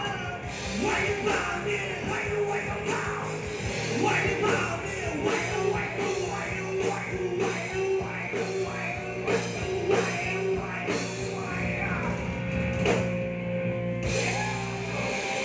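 Live rock band playing: electric guitar, bass and a drum kit with a singer.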